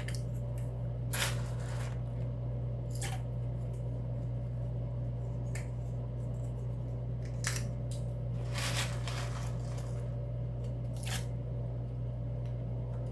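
Black peppercorns being scooped with a metal measuring spoon and tipped into a saucepan: about six short, scattered clicks and rattles over a steady low hum.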